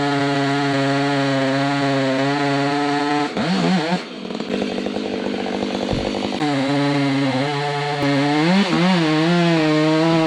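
Chainsaw running at full throttle through a large maple limb. About three and a half seconds in it drops to idle. About six seconds in it revs back up and runs at full speed again.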